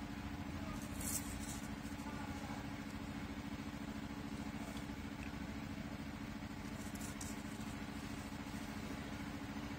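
Steady low mechanical hum from a running machine, with two faint scrapes of a pencil and drafting tools on paper, about a second in and again about seven seconds in.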